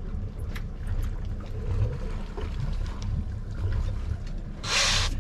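A fishing boat's motor running with a steady low rumble, with wind over the open water. Near the end comes a short, loud rush of hissing noise, about half a second long.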